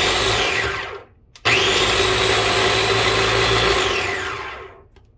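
Ninja food processor motor pulsed twice, a short burst of about a second and then a run of about three seconds, blending garlic scapes and herbs. Each run climbs quickly in pitch as the blade spins up and sinks away as it winds down.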